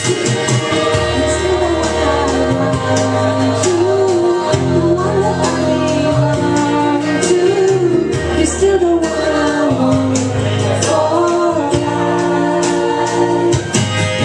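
A woman singing into a handheld microphone over musical accompaniment with held bass notes, sustained chords and a steady ticking beat.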